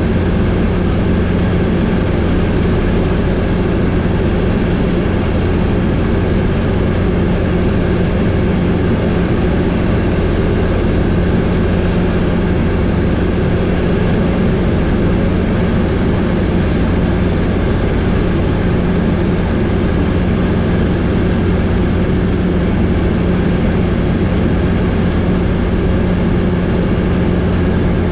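A helicopter in flight heard from on board: the loud, steady drone of its engine and rotor, with a low, even hum underneath.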